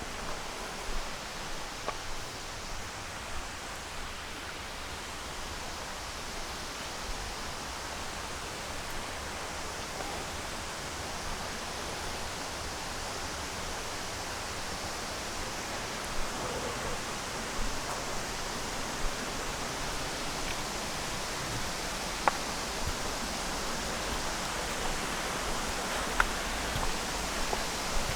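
Steady rush of a creek and waterfalls, slowly growing louder, with a few faint clicks.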